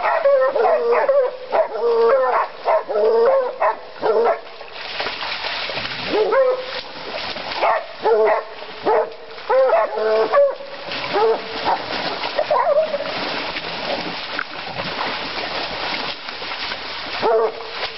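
Bluetick hounds and a cur barking and baying at a boar held at bay in swamp water, with splashing as they scuffle with it. The barking is thick for the first four seconds, then comes as single barks over steady splashing.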